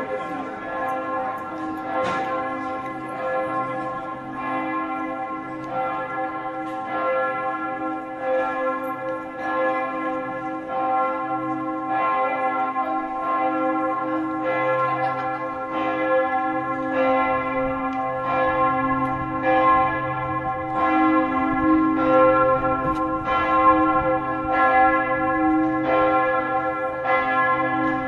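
A single large swinging church bell, the Neumünster's bell 1 (its largest), striking about once a second, its hum and overtones ringing on between strokes. This is the Vorläuten, the ringing that calls people to a service.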